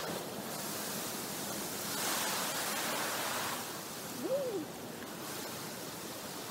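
Steady rushing outdoor noise on a forest trail, swelling louder for a second or so about two seconds in. About four seconds in comes one short call that rises and falls in pitch.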